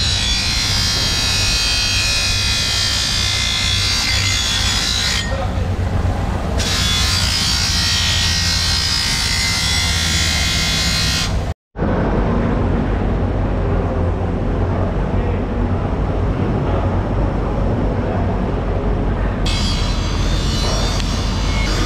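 Bench grinder's abrasive wheel grinding the edge of a large steel knife, a steady high whine with the scrape of steel on stone for about the first half. After a sudden break it gives way to a duller steady background noise with a low hum.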